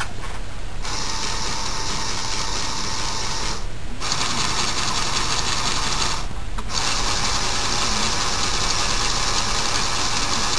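Electric motors and plastic gears of a radio-controlled LEGO Technic model whirring steadily, cutting out briefly twice, about four seconds in and again around six and a half seconds.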